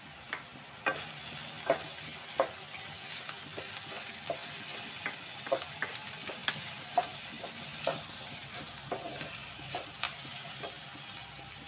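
Sliced onion, carrot and capsicum being stir-fried in hot oil in a wok, turned with a wooden spatula: a light sizzle, louder from about a second in, with irregular sharp knocks and scrapes of the spatula against the pan.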